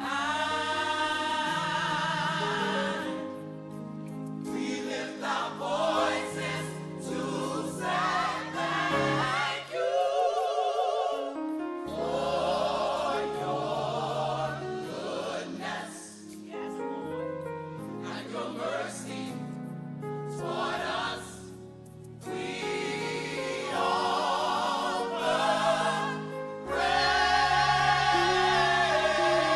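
Gospel choir singing with instrumental accompaniment: many voices holding long notes with vibrato over sustained low chords.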